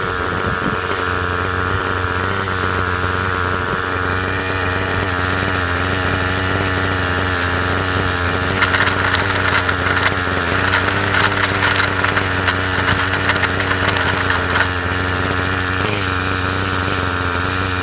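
A small motor running steadily with a constant hum and buzz. From about nine to fifteen seconds in, a scratchy crackling runs over it.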